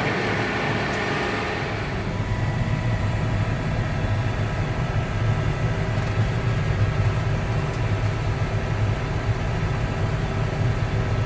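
Tractor engine running steadily under load while it pulls a grain cart, heard from inside the cab as a low, even drone. A higher hiss eases off about two seconds in.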